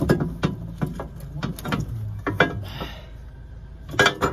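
Rear coil spring of a 2004 Honda Odyssey being worked out of its suspension seat by hand: a run of sharp knocks and clanks as the steel spring shifts against the suspension, with a cluster of louder ones near the end.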